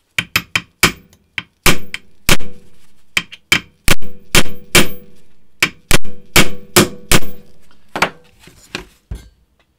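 A hammer striking a punch to drive out the roll pins holding a rifle's gas block on the barrel: about twenty sharp metallic blows at an uneven pace, some in quick pairs, each ringing briefly. The blows thin out near the end.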